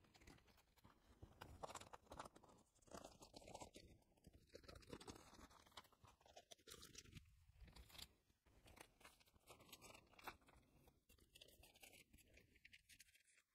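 Faint crinkling and small clicks of plastic photocard sleeves as cards are handled and slid into place, scattered and irregular over near silence.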